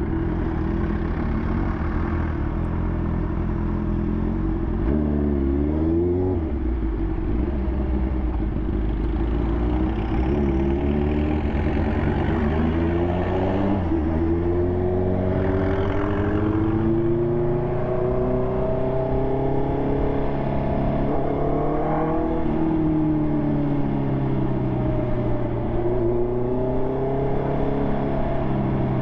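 Honda CB650R's inline-four engine running through an SC Project exhaust while riding, its pitch climbing steadily as the bike accelerates in the middle of the stretch, dropping briefly and then rising again near the end.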